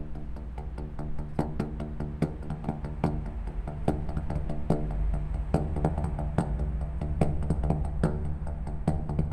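Recycled pipes being struck as a percussion instrument, several hits a second, each giving a short hollow pitched note, over a steady low tone.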